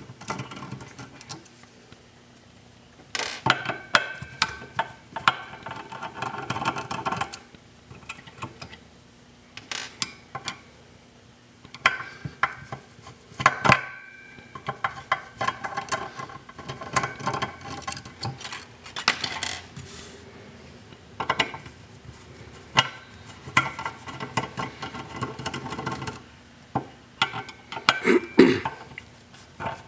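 Large 470 µF electrolytic bus capacitors being twisted and pulled out of their round seats in an aluminium VFD housing. The sound comes in stretches of pitched squeaky rubbing a few seconds long, with scattered clicks and knocks of the parts being handled.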